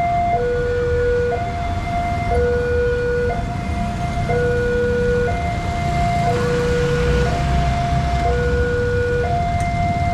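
Railway level-crossing warning alarm from the pole-mounted horn loudspeaker: an electronic two-tone signal alternating between a higher and a lower note, each held about a second, sounding while the barrier arms come down for an approaching train. Motorcycle and car engines run underneath, louder about six to seven seconds in.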